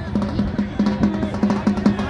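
Fast, steady drumming, about five strokes a second.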